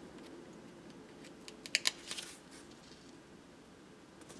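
Sticker handling: a few light, sharp clicks and taps, bunched a little under two seconds in, as clear date-dot stickers are peeled from their sheet with tweezers and pressed onto a paper journal page.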